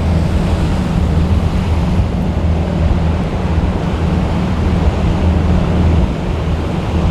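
Strong wind buffeting the microphone over the wash of rough surf, with a steady low rumble underneath.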